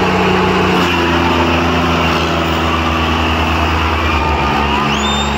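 Diesel tractor engine running loud and steady, its note dropping to a lower pitch about a second in. Near the end a high tone rises, then holds over it.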